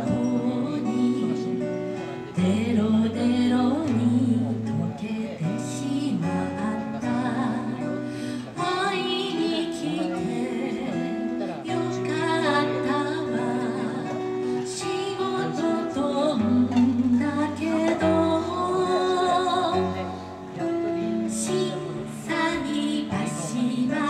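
A woman singing with her own strummed acoustic guitar as accompaniment, played live.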